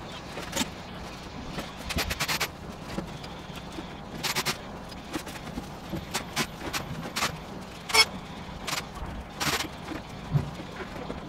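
Irregular sharp clicks and knocks, some in quick clusters, the loudest single one about eight seconds in.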